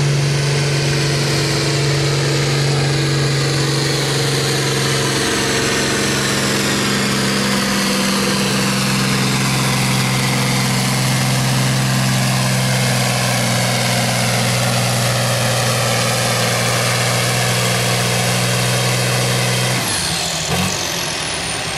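Farm tractor engine, a green-and-yellow John Deere, running hard at a steady pitch while it drags a weight-transfer pulling sled. About twenty seconds in, the engine note drops away suddenly as the pull ends.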